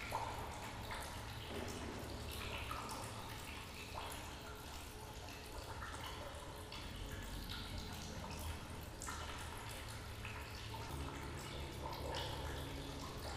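Faint room ambience: a steady low hum with scattered small clicks and a faint, distant murmur of voices.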